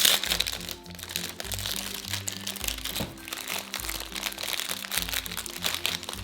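Plastic packaging of a Pez candy dispenser crinkling and crackling as it is unwrapped by hand, over upbeat background music.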